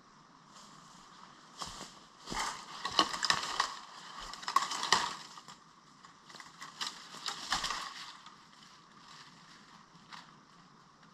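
Dry leaf litter and twigs crunching and snapping in irregular bursts. It starts about a second and a half in, is loudest between about three and five seconds, and dies away near eight seconds.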